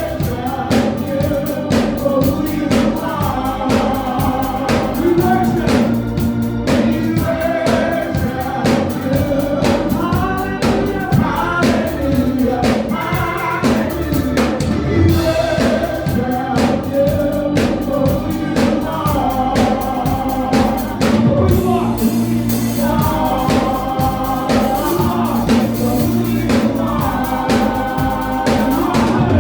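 Gospel choir singing with a band, drums keeping a steady beat under sustained bass and keyboard notes.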